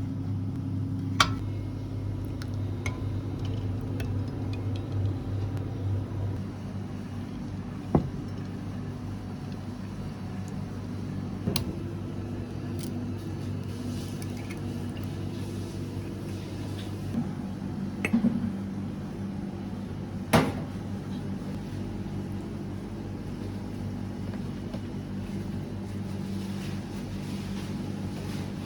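Steady hum of kitchen machinery, with a few sharp clinks and knocks scattered through it.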